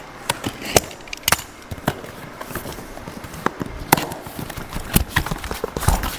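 Cardboard box being slit open with a utility knife and handled: irregular sharp clicks, scrapes and taps of blade, tape and cardboard, with the lid flap pulled open near the end.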